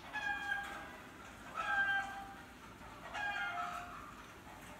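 An animal calling again and again: three high, pitched calls about a second and a half apart, each about half a second long and stepping down in pitch partway through.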